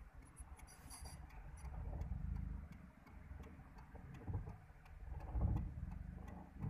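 Low rumble inside a car's cabin as it moves slowly, swelling twice, with scattered faint clicks.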